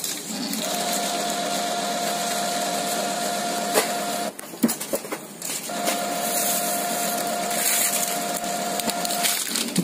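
Brother DCP-T310 inkjet printer's mechanism running through its start-up cycle just after being switched on: a steady motor whine of about three and a half seconds, a few clicks, then the same whine again.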